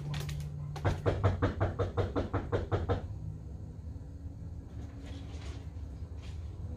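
A quick, even run of about a dozen knocks or taps, some five a second, lasting about two seconds, then a few faint taps.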